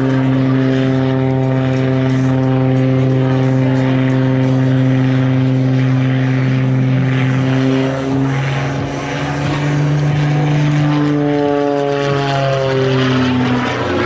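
Extra 330 aerobatic plane's piston engine and propeller droning overhead, holding a steady note through a vertical climb. About eight seconds in the pitch shifts and the sound dips briefly, then near the end the note rises and falls as the plane manoeuvres.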